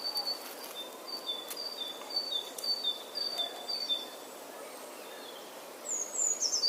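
Small bird chirping over a faint hiss: short high two-note calls repeated about twice a second, with a quick falling trill near the end.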